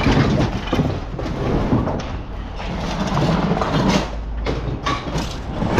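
Scrap metal rattling and clanking in a dense run of small knocks, over a low steady engine hum that fades out about two-thirds of the way through.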